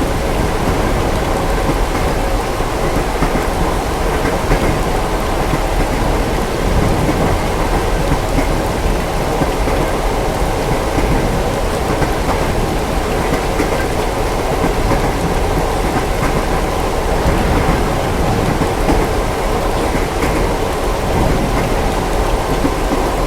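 Steady heavy rain with low rumbles of thunder, over the steady running noise of a train.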